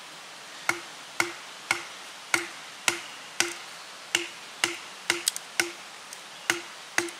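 Wooden baton striking the spine of a thin-bladed Old Hickory kitchen knife, driving it down into a stick of wood: a dozen or so sharp wooden knocks about two a second, each with a short ring.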